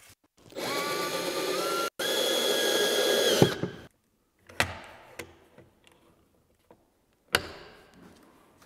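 Cordless drill running in two short bursts, the first rising slightly in pitch, while working pocket-hole screws into timber stair treads. A few sharp knocks of wood and tools follow.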